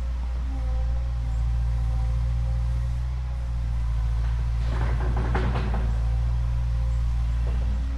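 Steady low hum of a small motor running, with a brief rattling clatter about five seconds in.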